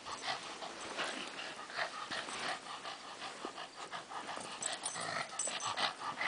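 A small spaniel playing at fighting a plush leopard-cub hand puppet: quick, irregular breathy sounds and mouthing noises from the dog, several a second.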